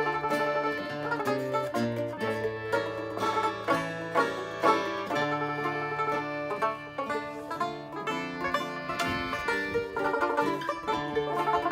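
An acoustic string band plays a tune together: a mandolin and a banjo-bodied mandolin pick the melody over strummed acoustic guitar chords and a concertina.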